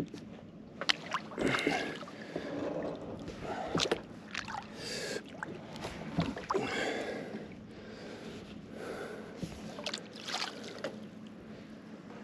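Kayak paddle dipping and splashing in the water, stroke after stroke, with a few sharp knocks mixed in.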